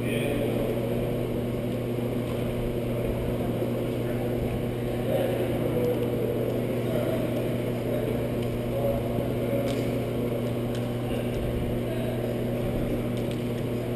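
Steady low hum of building equipment, an even drone with overtones that does not change, with a few faint clicks in the last few seconds.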